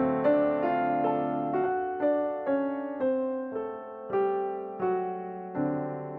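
Background music: a slow piano melody, single notes struck about once or twice a second, each ringing and fading before the next.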